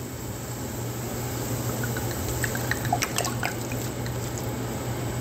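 White wine being poured into a pan of sautéing bell peppers and onions, liquid trickling and dripping into the hot pan, with a few small clinks about halfway through over a steady low hum.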